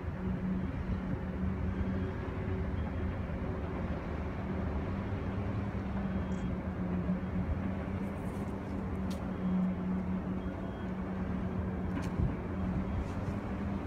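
Steady low drone of a 1960s Woolwich ferry's Mirrlees National diesel engines as the ferry manoeuvres in towards the pier, with a constant hum over a deep rumble. Two faint clicks are heard in the second half.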